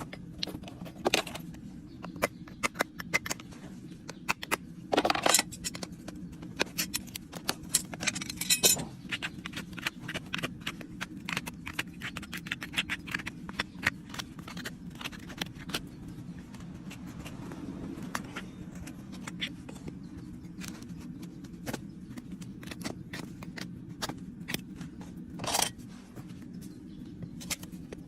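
Farrier's tools working a horse's hoof: many sharp clicks and snips, with a few longer scraping strokes, over a steady low hum.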